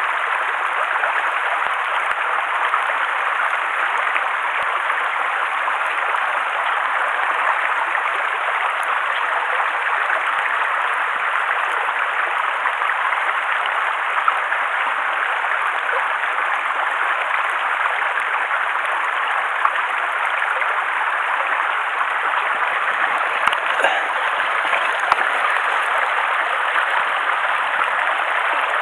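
Mountain stream running over rocks: a steady, even rush of water with no change, with a few faint clicks.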